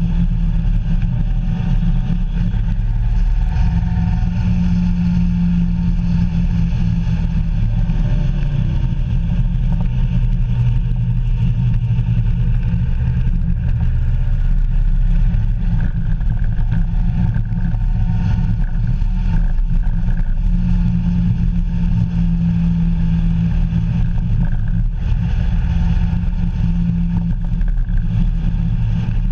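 A vehicle's engine running steadily while under way, heard on board with tyre and wind noise. The engine note shifts a little with speed and rises briefly about eight seconds in.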